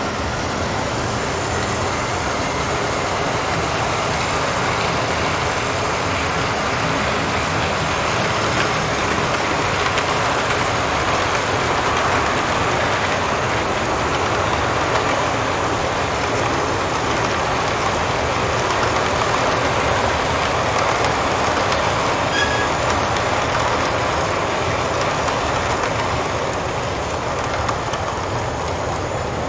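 O scale model passenger cars rolling along the track in a steady rumble of wheels on rails, growing a little louder in the middle as the train passes.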